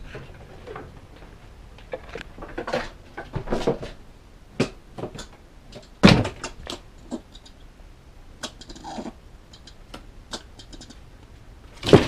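Irregular knocks, clicks and rustles of objects being handled and bumped, with a sharp thump about six seconds in and another at the end.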